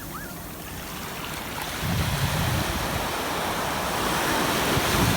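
Ocean surf washing in on the beach, the rush building toward the end, with wind buffeting the microphone in a low rumble about two seconds in.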